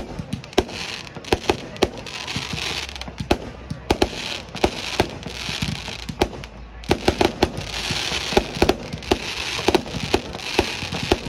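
Aerial fireworks bursting overhead: many sharp bangs in quick, irregular succession, with stretches of crackling hiss from the bursting shells between them.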